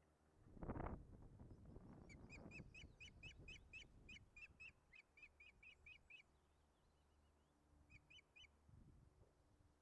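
Osprey calling: a rapid run of sharp, high whistled notes, about five a second for four seconds, then a short burst of three more. A brief low rumble comes just before the calls start.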